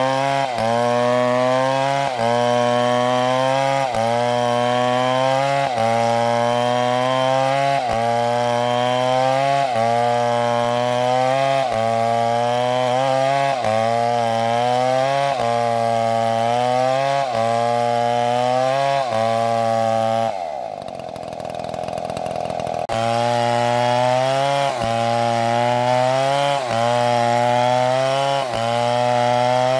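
Chainsaw engine running under load while cutting wood, its pitch rising and dropping in a steady rhythm about once a second. About twenty seconds in, the engine note falls away for a couple of seconds before the rhythm resumes.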